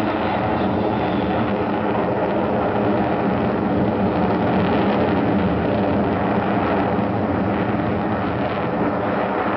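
Jet engine noise from four Su-30 fighters flying over in formation, a steady deep rushing sound that holds at the same level throughout.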